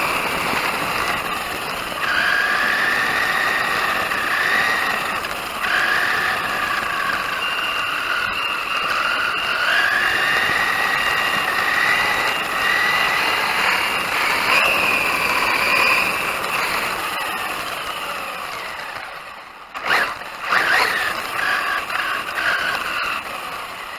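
Brushless electric motor and drivetrain of a 1/10 RC car running, its whine rising and falling in pitch with the throttle over a rush of tyre and gear noise. The whine fades away, then a few sharp knocks come about twenty seconds in.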